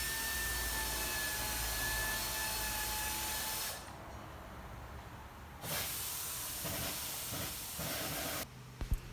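A steady hiss with a faint steady whistle in it, in two stretches that each start and stop abruptly: it cuts off about four seconds in, comes back about two seconds later, and stops again near the end.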